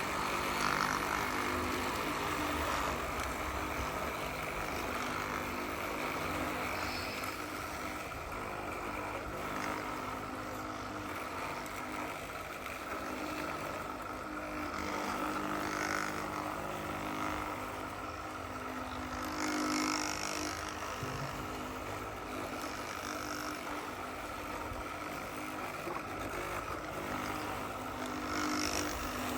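Radio-controlled model construction vehicles running, a steady mechanical sound that swells slightly now and then.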